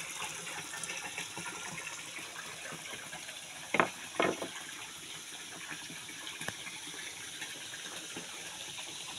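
Water running steadily from a hose into a shallow concrete tank, a constant splashing fill. Two short sharp sounds stand out about four seconds in.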